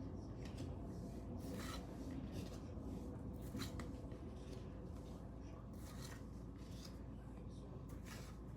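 Football trading cards being handled and flipped through, sliding and rubbing against each other in short rustling strokes every second or two, over a low steady hum.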